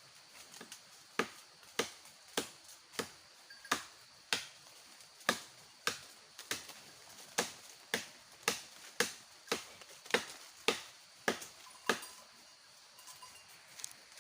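A blade chopping, about twenty sharp strokes at a steady pace of nearly two a second that stop near the end, typical of hacking fodder or branches for goats.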